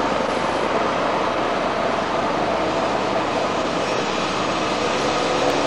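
Steady, even rushing noise of outdoor city ambience, with no distinct events.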